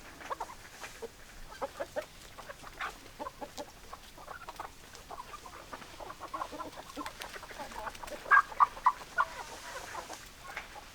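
Flock of domestic hens clucking, many short overlapping calls, with a loud burst of four quick clucks near the end.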